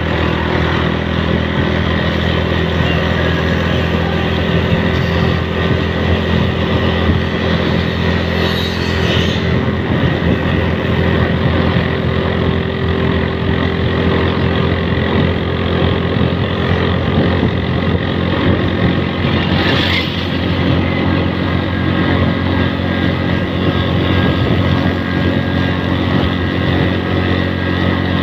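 Motorcycle engine running steadily at cruising speed, with continuous road and air noise. Two brief higher-pitched noises cut through about nine and twenty seconds in.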